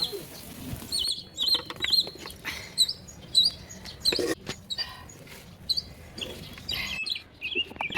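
Small birds chirping repeatedly in short, hooked chirps, with scattered clicks and knocks.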